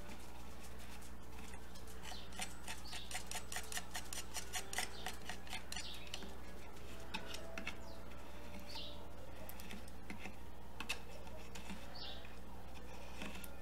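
Thin steel palette knife scraping and tapping wood glue into a crack in a meranti rail while a chisel holds the crack open, with a quick run of light clicks about two to five seconds in. A few short, high rising chirps come through later, over a steady electrical hum.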